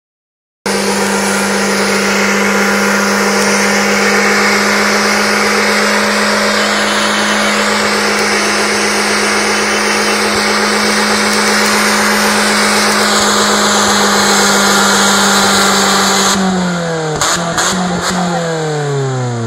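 Mazda Protegé four-cylinder engine held at high, steady revs in a burnout, front tyres spinning against the road in a loud hiss. Near the end the revs drop away in falling glides, with a few sharp clicks.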